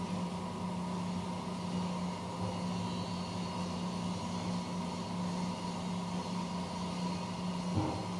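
CNC machine running with a steady motor hum and a faint higher whine, and a brief knock near the end.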